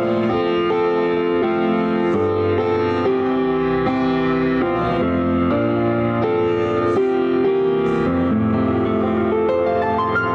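Piano keyboard playing slow sustained chords that change every second or so, with a short rising run of notes near the end.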